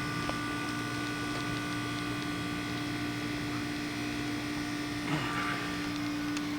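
Outdoor heat pump unit running in heat mode with a steady hum.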